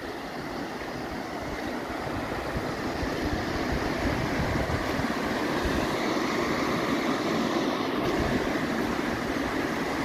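Creek running high and fast through whitewater rapids, a steady broad rush of water that grows a little louder over the first few seconds.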